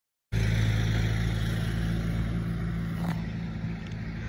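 Jet airliner engines at the airport across the water: a steady low rumble with a deep hum, cutting in abruptly just after the start.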